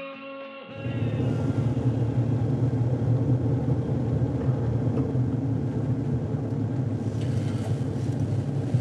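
A car's steady low rumble, its engine running, starting about a second in as the last notes of music die away.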